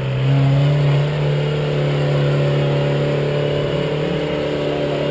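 Off-road 4x4 competition vehicle's engine held at high revs under load as it climbs a steep muddy hill. The revs rise at the very start, then hold a steady high pitch.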